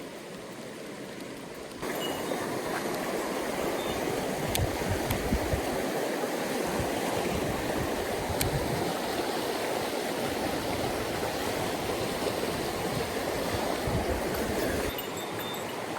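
Mountain stream water rushing over rocks, a steady rush that gets abruptly louder about two seconds in and drops back near the end, with a few low rumbles.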